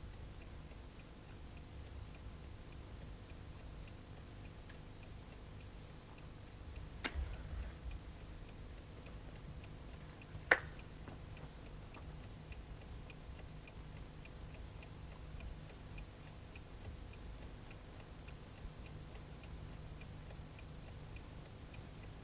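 Clock ticking steadily in a quiet room. A click sounds about seven seconds in, and a sharper, louder click about ten and a half seconds in.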